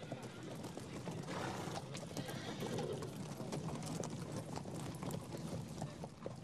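Horses' hooves clopping on the ground in an irregular, continuous clatter, as several horses mill about.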